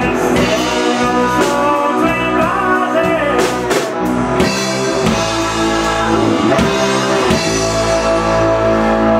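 Live blues-rock band playing: electric guitars, bass and drum kit, with cymbal crashes near the start and about three and a half seconds in.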